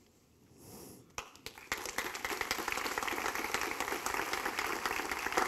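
Audience applauding in an auditorium, beginning with a few scattered claps about a second in and swelling into steady applause from many hands.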